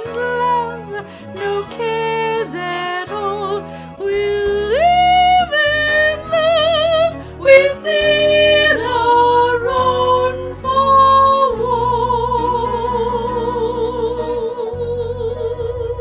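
A woman singing the closing phrases of a show tune with instrumental accompaniment, rising to higher notes in the middle and ending on one long held note with wide vibrato.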